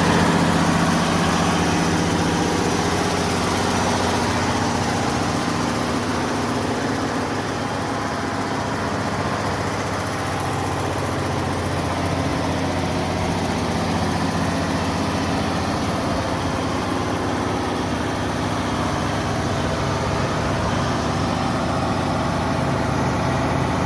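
Caterpillar generator's engine running steadily at idle, a low even hum that eases slightly over the first several seconds.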